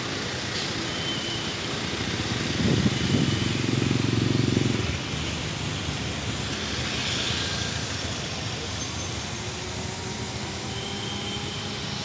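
Road traffic going by close: cars, motorcycles and a minibus. About three seconds in, a louder low steady hum lasts roughly two seconds and then cuts off.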